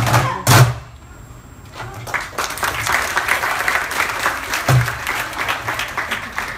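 Performance music ends on a final loud drum hit, then after a short lull the audience breaks into applause, dense clapping that carries on to the end, with one low thump partway through.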